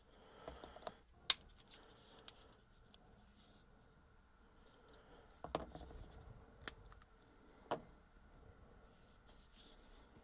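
Small hard clicks and light rubbing as a DJI Osmo Action 5 Pro action camera is handled in its protective frame. There is one sharp click about a second in and a few more in the second half.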